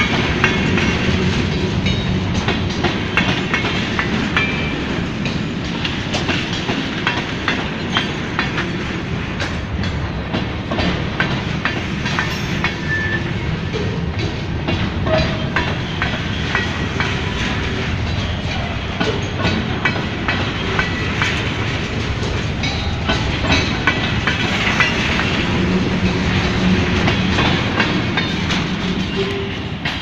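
Freight train's covered hopper cars rolling past at close range: a steady rumble of steel wheels on rail with a constant clatter of clicks and knocks.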